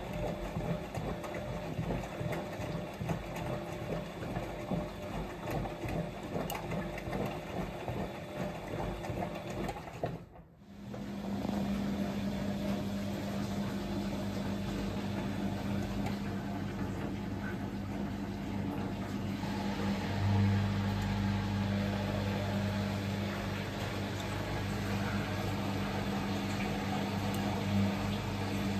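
Siemens Siwamat XS 1060 front-loading washing machine running its wash cycle, motor driving the drum as it turns the wet load. The sound is uneven at first, drops out briefly about ten seconds in, then goes on as a steadier hum.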